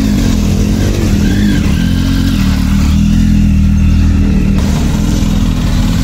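Motorcycle engine running steadily, its pitch rising and falling slightly with small throttle changes.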